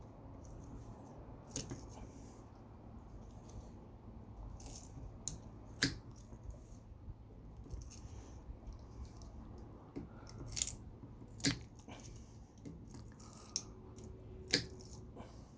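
Wire-cutter pliers snipping copper wire: several sharp cutting clicks at uneven intervals, with faint handling of tool and metal between them.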